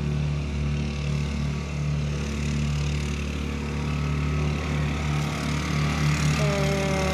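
A truck engine running steadily close by. About six and a half seconds in, its note shifts in pitch.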